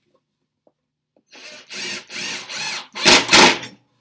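Cordless drill driving a wood screw into pine. The motor spins up in three short trigger pulses, each rising and falling in pitch, followed by a louder, harsher burst near the end.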